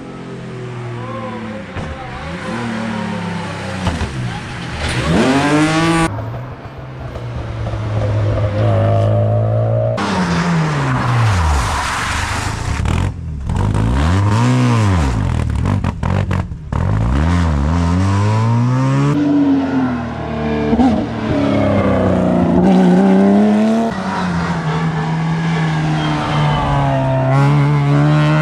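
Rally cars at racing speed, engines revving hard and falling away through gear changes and lifts, several passes one after another.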